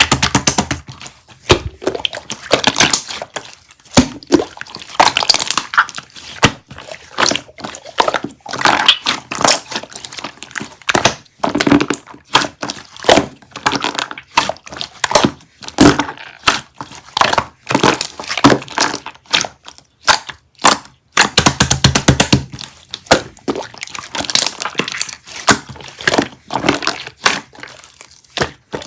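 Close-up handling noise: a rapid, irregular run of clicks, taps and crackles, with a few short pauses.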